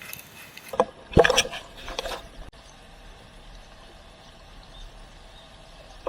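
Steady rush of river water, with a few short louder sounds in the first two seconds, one of them a tone falling in pitch about a second in.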